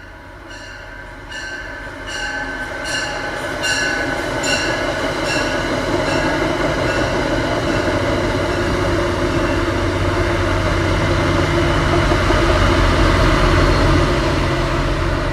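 Train passing close by. It builds from a rhythmic ringing clank, about two to three strokes a second, over the first few seconds into a loud, steady rumble that starts to fade near the end.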